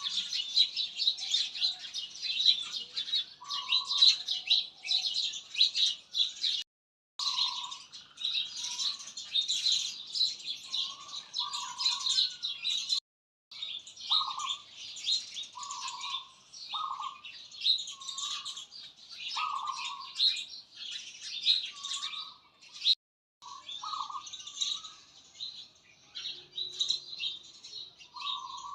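A chorus of birds chirping densely and continuously in high, rapid twitters, with a lower short call repeating every second or two. The sound cuts out completely three times for a moment.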